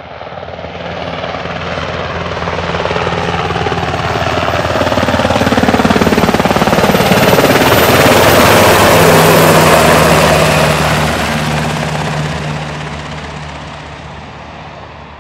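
UH-60 Black Hawk helicopter flying low overhead: its rotor and engine sound grows louder as it approaches, is loudest with a falling pitch as it passes about eight to ten seconds in, then fades as it flies away.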